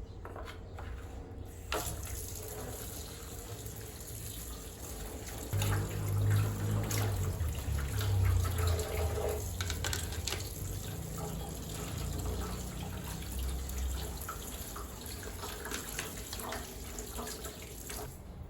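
Water running from a tap into a basin, with splashing and a few small knocks; louder and fuller from about five seconds in until about fourteen seconds in.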